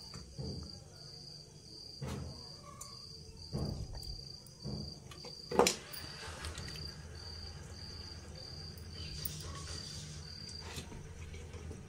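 Marrow bones being put one by one into an aluminium pot of broth, giving a handful of knocks, the loudest a sharp clank about halfway through. A steady high-pitched chirp repeats about twice a second underneath.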